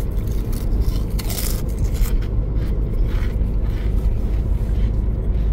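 Steady road and engine rumble inside a moving car's cabin, with a brief scraping rustle about a second in.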